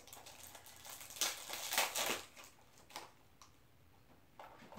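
Clear cellophane wrapper crinkling and tearing as it is peeled off a new blank cassette tape case, in a few crackling bursts about one to two seconds in. A few light clicks follow near the end.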